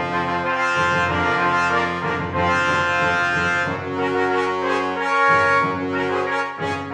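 Brass instrumental music with sustained notes that change pitch every second or so.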